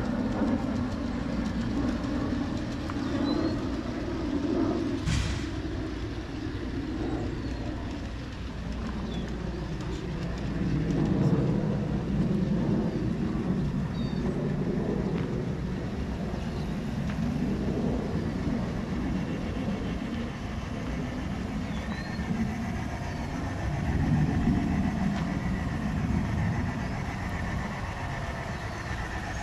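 G scale model trains running on a garden railway: a steady rumble of motors and wheels on the track that swells and fades as trains pass, with a single sharp click about five seconds in.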